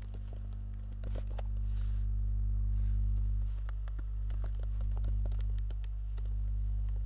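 A steady low electrical hum, with scattered light clicks of computer keys being typed.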